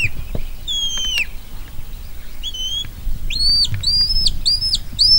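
Shepherd's whistle commands to a working sheepdog: a falling whistle at the start and another about a second in, a short one midway, then a run of quick, repeated rising whistles near the end.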